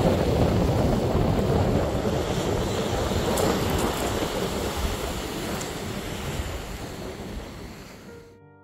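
Surf breaking on a pebble beach, mixed with wind buffeting the microphone, gradually fading out near the end.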